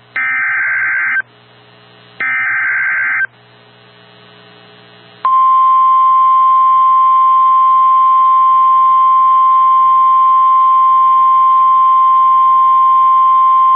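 Emergency Alert System SAME header: two harsh one-second digital data bursts about a second apart, then the steady 1050 Hz NOAA Weather Radio warning alarm tone held for about nine seconds and cut off suddenly, the signal that opens a new warning broadcast.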